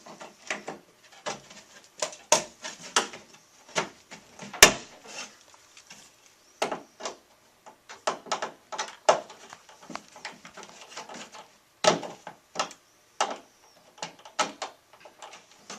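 Irregular wooden knocks and clicks as flat-pack cabinet panels and their cam lock fittings are handled and fitted together, the sharpest knock about four and a half seconds in.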